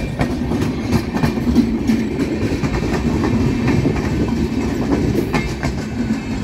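Passenger express train coaches passing at speed close by: a steady rumble with repeated clicks of the wheels running over the rail joints.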